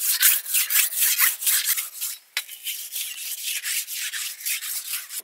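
A steel blade being whetted on a wet stone, scraping back and forth in rough strokes about three times a second. There is a short pause and a click about two seconds in, and then the strokes go on more softly.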